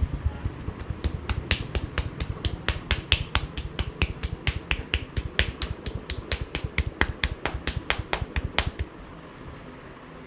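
Fast rhythmic percussive massage strokes by hand: dull thumps with sharp clicking slaps, about five a second, that stop suddenly near the end.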